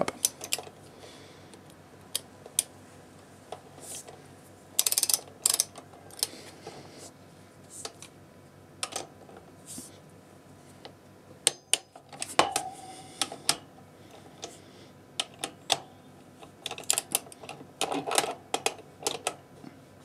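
Click-type torque wrench ratcheting a 13 mm socket on a BMW R1200 GSA's front brake caliper bolts, set to 38 Nm: short runs of light clicks and a few knocks, spread through.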